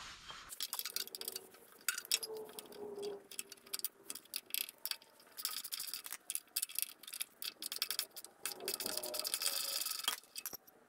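Ratchet wrench clicking in quick runs on a half-inch bolt, loosening the factory-mounted bolt on a steel mower deck.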